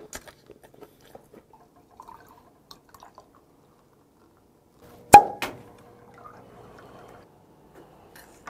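Soju and beer poured into a glass to mix somaek: a loud sharp glass clink about five seconds in, followed by about two seconds of liquid pouring and fizzing.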